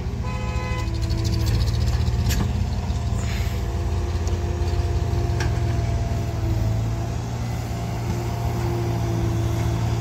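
Heavy diesel engines of a Sonalika tractor and a Case backhoe loader running steadily at work, a deep even hum with a thin steady whine over it. A short steady tone sounds for under a second at the start.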